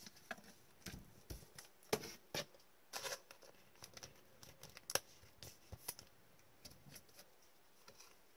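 Trading cards and clear plastic card holders being handled: irregular soft clicks and rustles, the sharpest about two and five seconds in.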